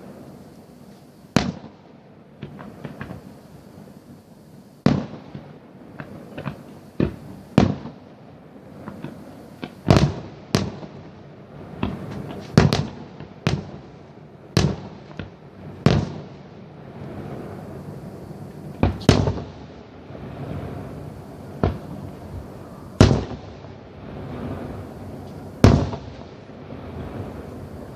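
Fireworks going off: a long irregular series of sharp bangs, some close together and some a few seconds apart, each with a short echo, over a continuous background of quieter distant bangs and crackle.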